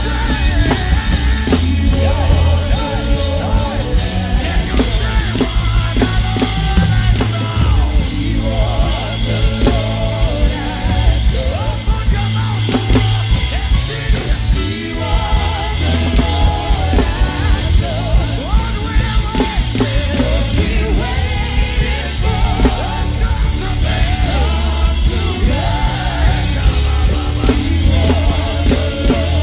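Live gospel worship band playing loudly: a drum kit played hard, with strikes on the cymbals and drums, under singing voices and a heavy bass.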